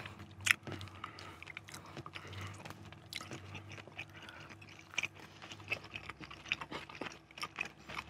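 Close-up chewing of a chicken momo dumpling, with soft crunches and irregular small mouth clicks.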